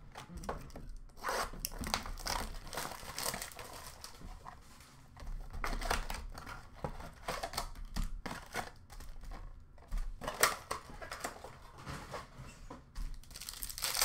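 Upper Deck Series 2 hockey card packs being opened by hand: wrappers tearing and crinkling in irregular bursts, with cardboard box and cards handled in between.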